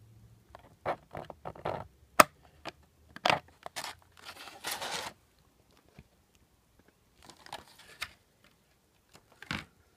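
A clear plastic blister tray and thin plastic parts bags being handled: irregular crinkling and crackling with a few sharp clicks, the sharpest about two seconds in, and a short pause about halfway through.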